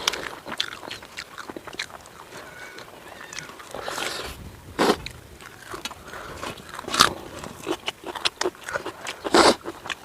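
A person eating tandoori chicken: irregular bites, crunches and chewing close to the microphone, with a few louder crunches around the middle and near the end.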